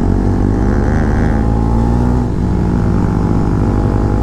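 Motorcycle fitted with an aftermarket Akrapovic exhaust running on the move, its exhaust note rising and falling a little in the first couple of seconds, then holding steady.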